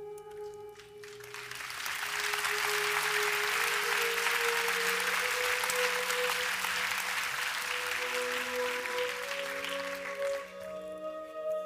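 Audience applauding, building up about a second in and stopping shortly before the end, over soft, slow ambient music with long held notes.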